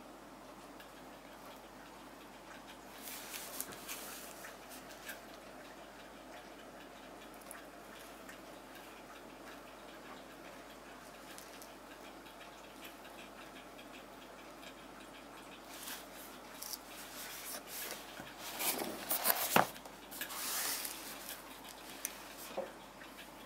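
Typing on a Rosewill RK-9000 mechanical keyboard with clicky Cherry MX Blue switches: scattered light key clicks, with a short flurry about three seconds in and a denser, louder run of keystrokes in the last third.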